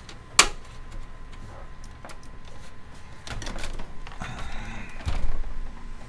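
Clicks and knocks of hands working computer parts inside a PC case as a jammed graphics card is worked at: a sharp click about half a second in, scattered lighter clicks, and a heavier knock shortly after five seconds.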